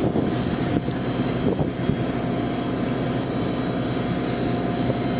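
Tractor engine running steadily, a low even drone.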